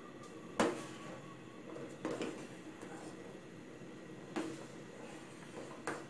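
Metal ladle stirring rice in broth in an enamel pot, knocking against the pot four times, loudest about half a second in, with a short ring after the knocks.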